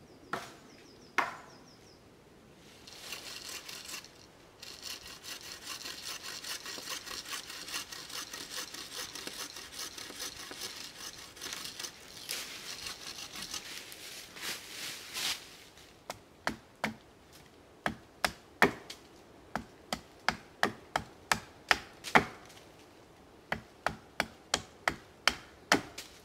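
A saw rasping through wood in quick, steady strokes for about twelve seconds, then a hatchet chopping into a stick, about two sharp chops a second, as a stake is sharpened to a point.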